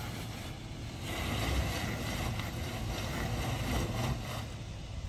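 Suzuki JB74 Jimny's 1.5-litre four-cylinder engine running at low speed off-road, a steady low rumble. A louder hiss of wind and tyre noise swells from about a second in and eases near the end.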